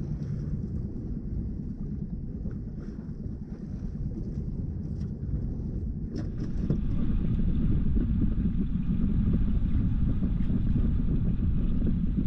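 Boat motor running steadily while trolling, with wind rumbling on the microphone; the sound gets louder a little over halfway through.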